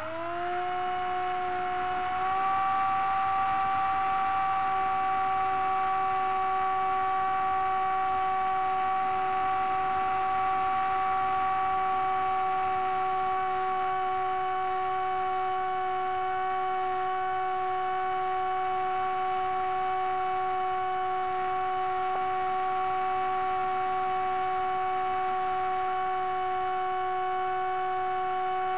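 Radio-controlled seaplane's motor and propeller heard from on board: a steady whine that rises in pitch over the first two seconds and then holds steady as the plane climbs.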